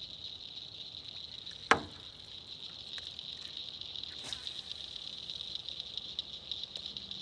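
Steady high-pitched chorus of evening insects, with one sharp knock about a second and a half in and a fainter click a little after four seconds.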